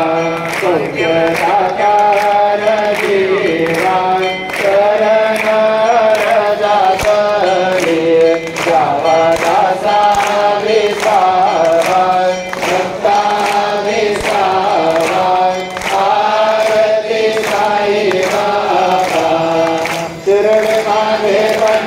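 Devotional chant sung by a group of voices with instrumental accompaniment and a steady percussive beat of about two strokes a second.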